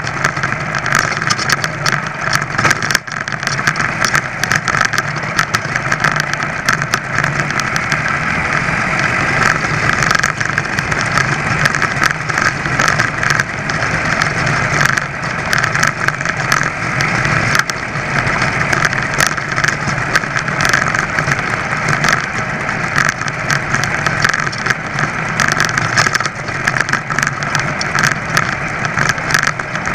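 An ABG (Velo) VAP two-stroke clip-on bicycle engine running steadily under way, with a busy buzz that never lets up. Many small clicks and rattles run through it.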